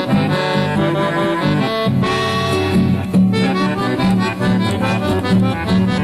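Chamamé folk music led by a piano accordion playing a melody over guitar accompaniment, from a 1980s cassette recording.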